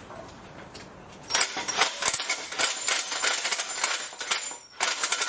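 Metal engine hoist being adjusted, with a rapid, dense metallic clattering and clicking. It starts about a second in, breaks off briefly near the end, then resumes.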